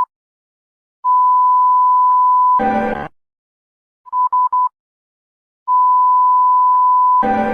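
Emergency alert alarm tones repeating in a cycle about every four and a half seconds: a quick run of short beeps, a long steady beep of about a second and a half, then a brief harsh buzz, the loudest part, followed by a pause.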